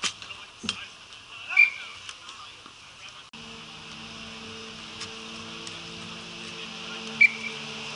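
Ball hockey play on an outdoor rink: scattered clacks of sticks and ball on the plastic tile surface, with two loud sharp cracks about a second and a half in and near the end. From a little before halfway a steady low engine-like hum runs under the play.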